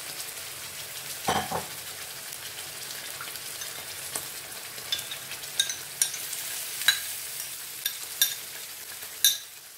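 Onion masala sizzling in a frying pan as water-soaked red chilli paste is spooned in, with a spoon scraping and clinking against the bowl in sharp ticks through the second half.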